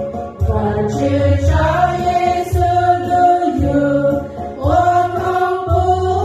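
A women's group singing a Christmas song together in sustained, gliding phrases into handheld microphones, over accompaniment with regular low bass notes.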